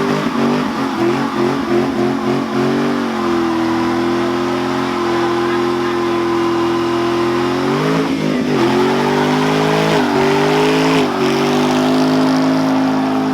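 Ford Mustang engine held at high, steady revs during a burnout. The revs waver at first, then dip and climb back briefly about two-thirds of the way through, and again a little later.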